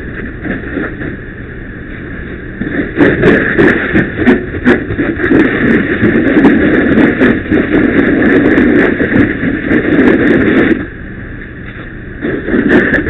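Fire hose stream rushing steadily out of the nozzle onto burning debris, with scattered sharp pops and crackles from the fire. The rush grows louder about three seconds in and dips briefly for a second or so about eleven seconds in.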